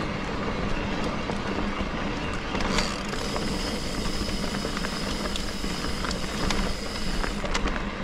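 Trek Rail 7 electric mountain bike riding a trail: steady tyre and wind noise with many sharp rattling clicks from the bike jolting over the ground. From about three seconds in, a thin steady high whine holds for about four seconds.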